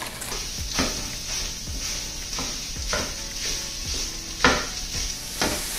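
Italian sausage sizzling in hot olive oil in a nonstick skillet while a spatula breaks up and stirs the meat. The spatula makes several scraping knocks against the pan, the loudest about three-quarters of the way in.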